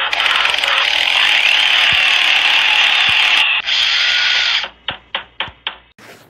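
Intro sound effect of tools: a loud, steady power-tool whirr for about four and a half seconds, then about six quick ratchet clicks, each fainter than the last.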